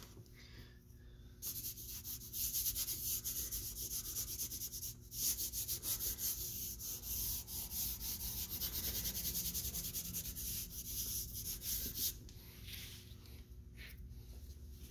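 Vine charcoal rubbed and stroked across drawing paper in quick, scratchy strokes, starting about a second and a half in and easing off about twelve seconds in.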